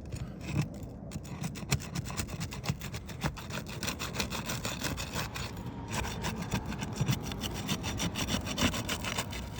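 Asphalt shingle being pried up with a roofing flat bar, its sealant strip tearing loose in a rapid crackling rasp. The crackle is the sound of material transfer: the shingle's asphalt ripping away with the seal, damage that means the shingle needs replacing. It eases off briefly about six seconds in.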